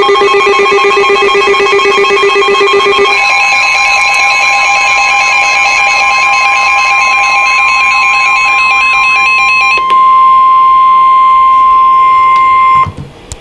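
Emergency Alert System alert tones ahead of a severe thunderstorm warning. A few seconds of pulsing, warbling tones give way to one steady, loud high-pitched tone with fainter beeping tones above it, which cuts off abruptly just before the end.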